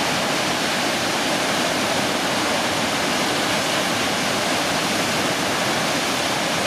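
Acquafraggia waterfalls: two tall cascades falling onto the rocks at their foot, a steady, loud rush of water that does not change.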